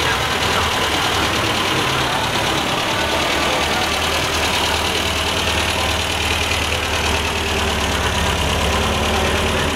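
MGB roadster's four-cylinder engine idling steadily, a low even hum under a constant hiss.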